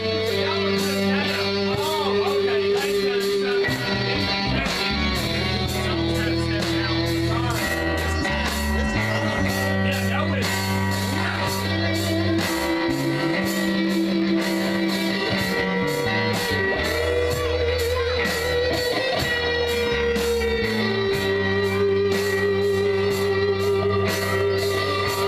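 A live rock band playing: electric guitar lines with bent notes over held bass notes, with a steady drum beat underneath.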